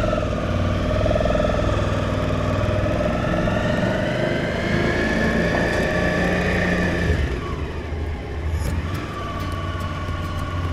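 Suzuki V-Strom motorcycle engine pulling away and accelerating, its note rising steadily. About seven seconds in the pitch drops at a gear change, then climbs again.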